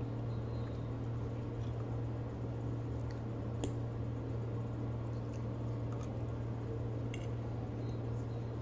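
Eating at the table: a metal fork and spoon clink sharply against the plate a few times while she chews a mouthful of spaghetti, over a steady low hum.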